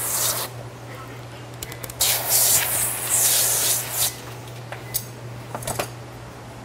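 Liquid sprayed from a hand sprayer onto window-tint film laid on a glass sheet. There is a short hissing spray at the start, a long one of about two seconds in the middle, and a few brief spurts near the end.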